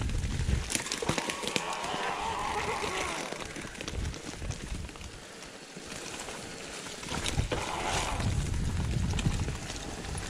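Mountain bike rolling downhill on a leaf-covered dirt trail: tyres crunching over leaves and dirt, with the bike knocking and rattling over roots and bumps.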